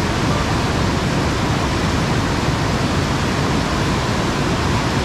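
Loud, steady rush of fast-flowing mountain water tumbling over rocks close by, an even roar with no breaks.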